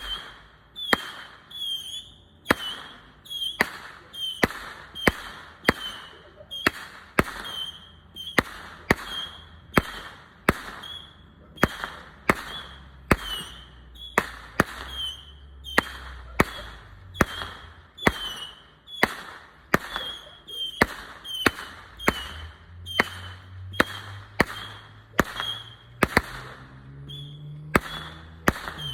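Consumer firework cake firing a long, steady string of shots, about one and a half a second, each a sharp bang with a short high-pitched tone after it.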